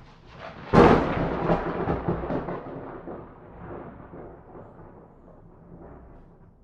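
A thunderclap: a sharp crack a little under a second in, then a rolling rumble that slowly fades away over the next several seconds.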